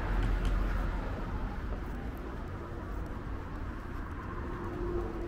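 Outdoor city street ambience: a steady wash of traffic noise. A faint steady tone comes in near the end.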